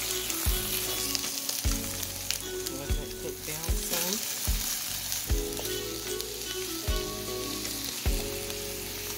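Chopped onions, bell peppers, parsley and garlic sizzling in hot oil in a nonstick skillet, with a steady hiss. A silicone spatula stirs them, knocking dully against the pan every second or so.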